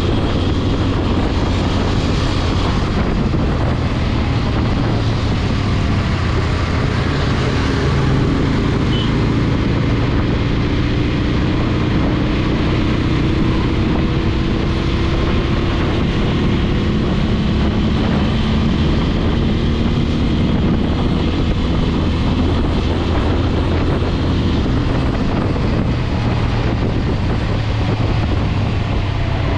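TVS Apache RTR 200 4V single-cylinder motorcycle engine running under way, its pitch sliding gently up and down with the throttle, with wind rushing over the microphone.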